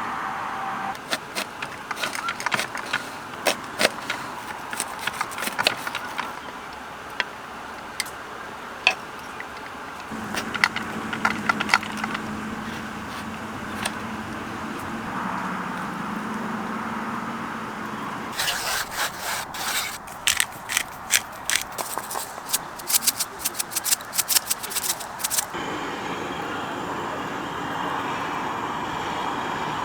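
Light clicks, taps and scrapes of objects being handled, scattered at first, then a quick run of rapid clicks for several seconds past the middle.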